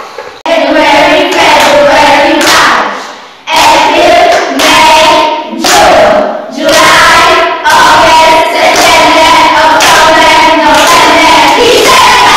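A group of children singing a song together, loud and in phrases, with a short break about three seconds in.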